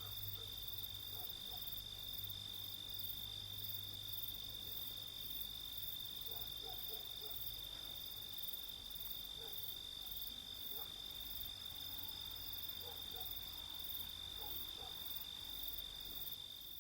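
Summer night insect chorus: crickets trilling in one unbroken high tone, with a second, higher-pitched insect pulsing about twice a second. Underneath are a faint low hum and scattered faint short calls.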